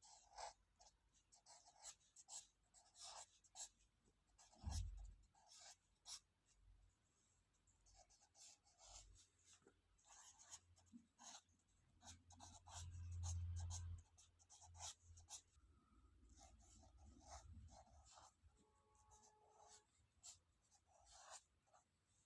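Knife tip scraping a piece of kakra singhi (Pistacia gall) to clean it: a run of short, faint scratching strokes. A low bump comes about five seconds in and a longer low rumble around the middle.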